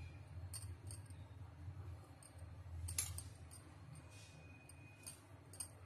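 Faint light clinks of a metal spoon against a steel plate while sauce is spooned onto burgers, the loudest about three seconds in, over a low steady hum.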